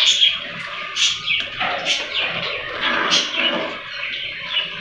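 Metal spoon scraping round the bottom of a pan while stirring a thickening cornflour-and-water paste, with a sharp scrape about once a second at each stroke.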